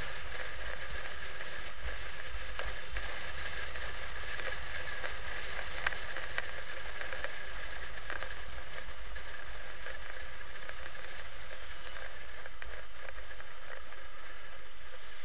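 Motorcycle riding along at town speed, heard from a handlebar-mounted camera: steady wind and road noise over a low engine rumble, with small rattling ticks.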